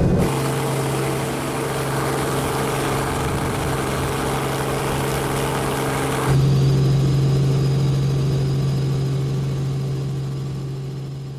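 Robinson R44 helicopter in flight, a steady low drone of engine and rotor under a rushing hiss. About six seconds in the hiss drops away and the drone grows louder, then it fades out near the end.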